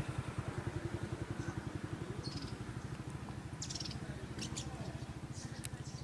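A small engine running steadily with a fast, even, low putter.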